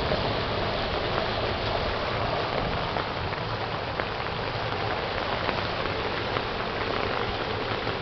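Steady rush of stormwater runoff pouring into a street drain and running down the gutter after a thunderstorm, with small scattered ticks over the noise.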